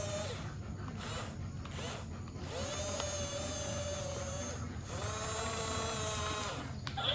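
Small electric motors of a Huina 1550 RC excavator whining, in two runs of about two seconds each, each rising slightly in pitch as it starts.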